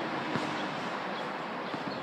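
A basketball bouncing on an outdoor court, a few separate thuds, one clear one about a third of a second in and fainter ones near the end, over a steady background hiss.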